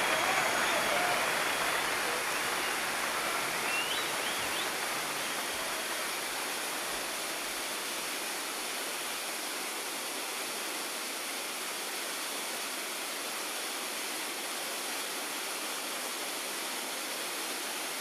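Garden waterfall spilling down a rock face: a steady rush of falling, splashing water, easing slightly over the first several seconds and then holding even.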